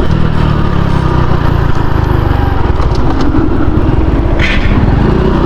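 A Honda Pop 110i's single-cylinder engine running while the motorcycle is ridden, with a steady racket of vibration noise from the front end. The rider suspects a cord he tied on the bike is rattling against it.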